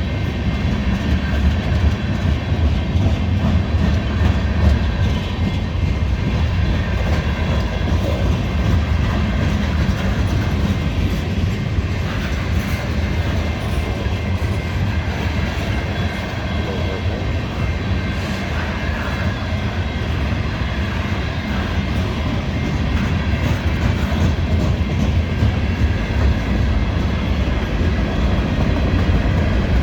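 CSX mixed freight train rolling past, a steady rumble of wheels on rail.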